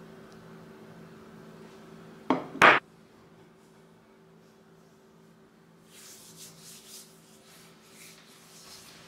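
Hands rubbing homemade balm into the palms and fingers: soft skin-on-skin rubbing from about six seconds in. Just over two seconds in comes a brief, loud double knock, the loudest sound. A faint steady hum sits underneath.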